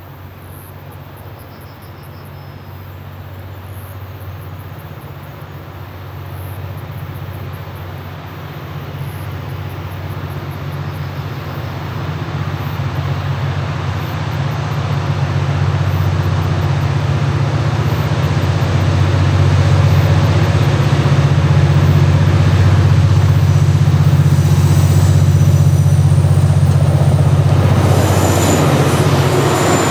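A KiwiRail freight train led by several DFB-class diesel-electric locomotives approaches. The deep, steady drone of their engines grows steadily louder. Near the end the locomotives pass close by, adding wheel and rail noise.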